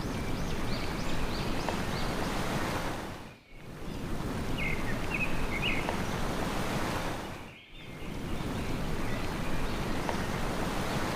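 Steady hiss of sea surf that dips briefly about every four seconds, with a small bird chirping in short quick series over it.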